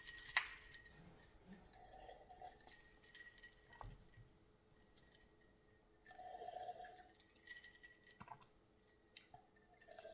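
Faint drinking sounds: gulps of cola from a glass of ice, with light clinks of ice against the glass. The loudest gulps come a little past halfway.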